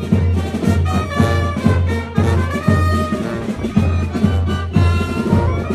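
Lively brass band music with a steady beat, about two beats a second, over a strong bass line.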